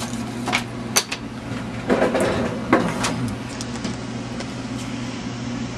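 A handful of light, sharp knocks and clicks as model kit parts are handled and fitted together, most of them in the first three seconds, over a steady low hum.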